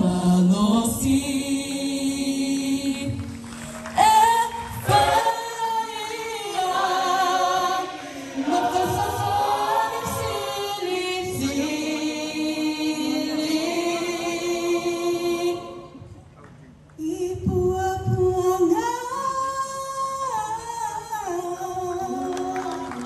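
A choir singing a Christmas carol in harmony, with a brief pause about sixteen seconds in before the singing resumes.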